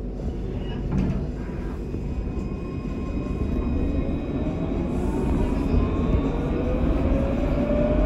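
Alstom Citadis Luas tram heard from inside the passenger car. The wheels rumble steadily on the rails, and from about three seconds in the electric traction motors whine, rising steadily in pitch and getting louder as the tram picks up speed. A single click comes about a second in.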